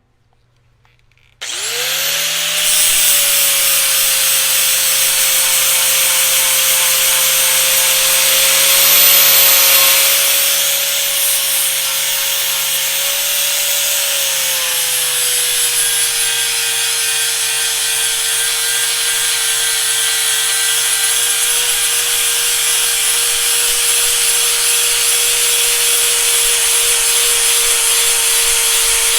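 Bandsaw starting up about a second and a half in, then running steadily with a loud high cutting hiss as it saws flat steel stock. Its motor hum drops slightly in pitch about halfway through.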